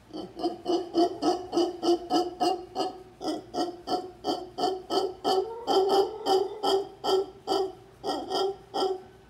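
Mantled howler monkeys calling: a loud, rapid series of deep, rhythmic grunting pulses, about three a second, that starts suddenly and keeps going.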